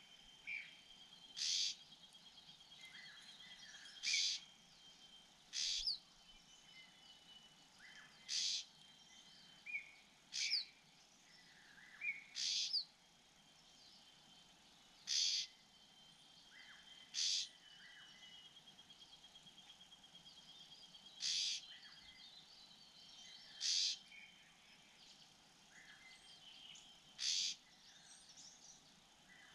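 Bird calls: short, sharp calls repeated about every two seconds, with a faint steady high trill underneath.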